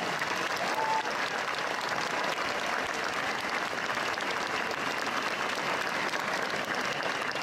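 A large crowd applauding steadily, an even wash of many hands clapping.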